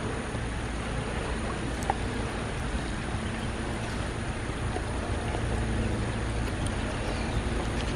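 Shallow stream water running over stones, a steady rushing noise with a low rumble underneath.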